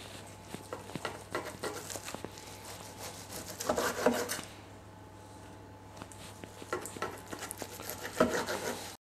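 Long knife sawing slices off a smoked beef brisket point on a wooden end-grain cutting board, the blade rasping and crackling through the dark crusted bark. The cutting comes in two bouts, about three and a half seconds in and again from about seven seconds, with lighter clicks before.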